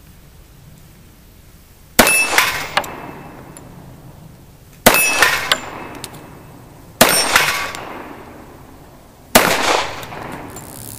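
Four .45 ACP shots from a Colt 1911 Gold Cup National Match pistol, slowly spaced about two to three seconds apart, each followed by the ringing clang of a steel plate being hit. The slow pace goes with a trigger that is not resetting and has to be pushed forward by finger after each shot.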